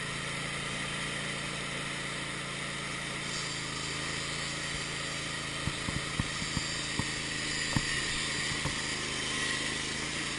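Wood-Mizer LT15 sawmill engine running steadily, with a handful of sharp knocks a little past the middle.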